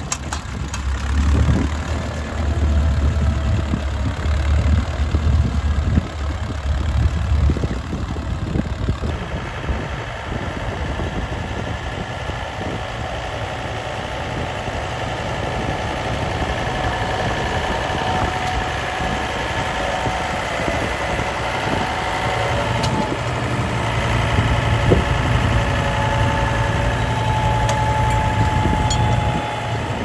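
Tractor engines working under load while pulling ploughs. A Massey-Harris 30 runs with a low, pulsing beat. After about nine seconds the sound changes to a John Deere utility tractor's engine running steadily as it ploughs.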